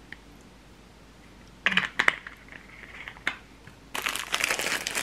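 A few sharp clicks and knocks of a ceramic dish and chopsticks being set down on a table, then from about four seconds in a dense crinkling of packaging being handled.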